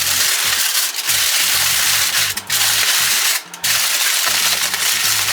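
Aluminium foil crinkling and rustling as a hobo-dinner foil packet is folded closed, over background music.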